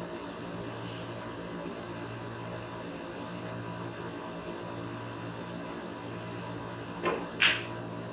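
Snooker cue tip striking the cue ball with a sharp click about seven seconds in, followed a third of a second later by a louder click as the cue ball hits a red. A steady low hum runs underneath throughout.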